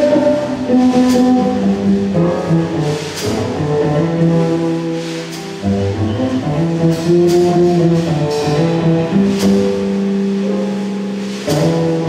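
Live band music on piano, double bass and drum kit, with long held notes and chords and cymbal strokes every second or two.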